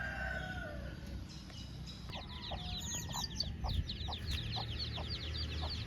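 A rooster's crow trailing off at the start, then chickens clucking alongside a fast run of high, downward-sliding chirps that starts about two seconds in and stops just before the end, over a low rumble.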